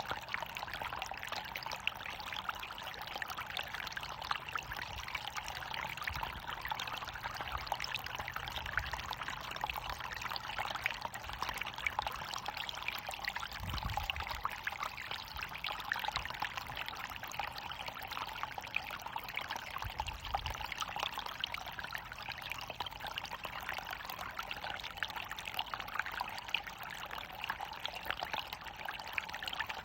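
Water running and splashing steadily over a small waterfall, an even rushing patter. Two faint low rumbles come through about halfway.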